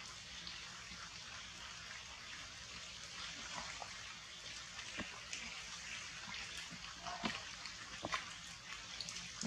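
Steady rain falling on forest foliage, an even hiss with a few short sharp clicks in the second half.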